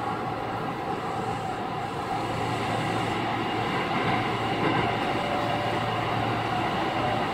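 Running sound inside a Chiba New Town Railway 9100 series motor car with WN drive, at steady speed: rail and wheel noise with a steady whine from the gearing and traction motor.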